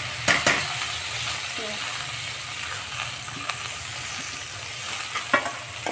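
Whole spices sizzling in melted butter in a kadai, a steady frying hiss, with a few sharp clicks of a steel spoon against the pan near the start and the end.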